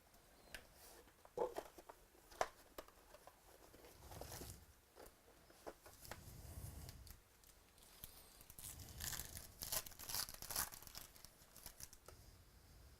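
Trading card packs being torn open and their wrappers crinkled, with scattered sharp clicks and taps, and a spell of louder crackly rustling a little past the middle.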